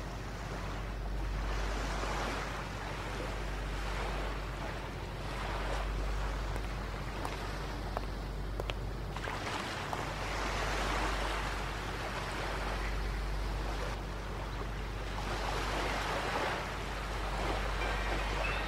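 Sea waves breaking on a beach, the surf swelling and falling back every four to five seconds over a steady low rumble.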